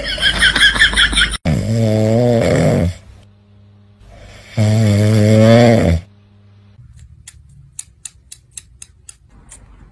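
A sleeping dog snoring loudly: two long, deep snores of about a second and a half each, with a pause between them. A high, wavering vocal sound cuts off sharply just before the snores, and faint quick clicks of a cat licking its paw follow.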